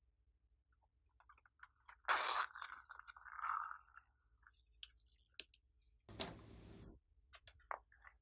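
Small plastic pearl beads rattling as they are tipped out of a plastic case into a hand, then scattered onto slime, among light clicks from handling the case. There are two bursts of rattling, the first lasting about three seconds and a shorter one about six seconds in.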